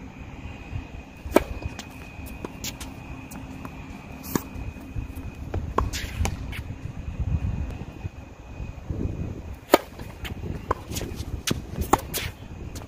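Tennis rally on a hard court: sharp, irregular pops of the racket strings striking the ball and the ball bouncing, starting with a serve, over a low rumble of wind on the microphone.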